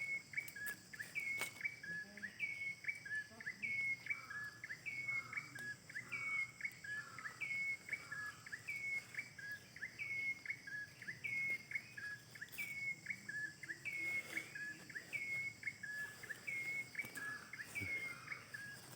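A bird's two-note call, a higher note then a slightly lower one, repeated evenly about one and a half times a second, over a faint steady high-pitched insect hum.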